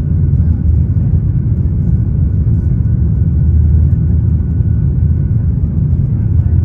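Boeing 737-900's CFM56-7B jet engines at takeoff power, heard from inside the passenger cabin: a loud, steady low rumble with a faint high tone above it.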